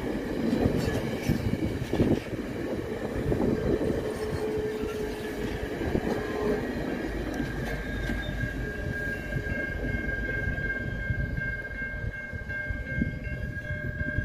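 VIA Rail stainless-steel passenger cars rolling past with wheel rumble and clatter, which eases off about halfway through as the last car goes by. A level-crossing bell rings on steadily and stands out clearly once the train has passed.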